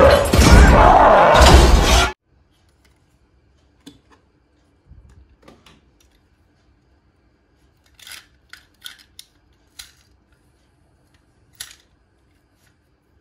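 Loud cartoon soundtrack with music and a shouted "Whoa!" that cuts off suddenly about two seconds in. Then near quiet with a few faint clicks and taps from a small toy car being handled in the fingers.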